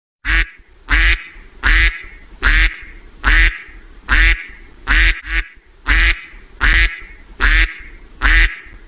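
Duck quacking: about eleven loud, harsh quacks in an even rhythm, a little under a second apart.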